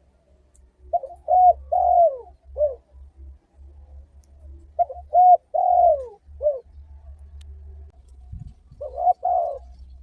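Spotted dove (tekukur) cooing. Two full call phrases of a few short coos run into a longer, drawn-out note, and a third phrase begins near the end.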